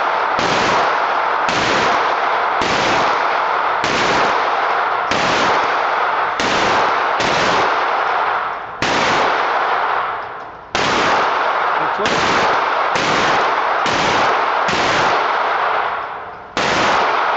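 Rapid gunfire, shot after shot in a nearly unbroken run, with brief breaks about 9, 11 and 16 seconds in.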